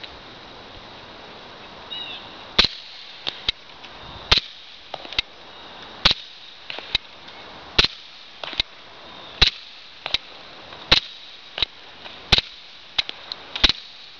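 Sig P220 .45 ACP pistol fired through a Silencerco Osprey 45 suppressor with water in it: eight suppressed shots, about one and a half seconds apart. The water damps the first round pop and makes every shot quieter than a dry suppressor. Smaller, lighter clicks fall between the shots.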